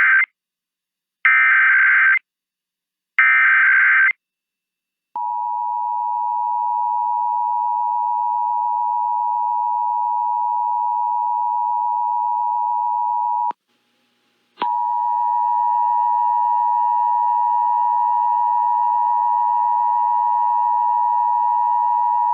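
Emergency Alert System test: three short screeching SAME data bursts (the digital header), then the steady two-tone EAS attention signal. The attention signal cuts off about halfway through, then starts again with fainter extra tones mixed in above it.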